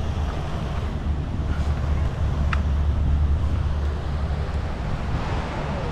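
Wind buffeting the microphone, giving a steady low rumble over a wash of outdoor noise.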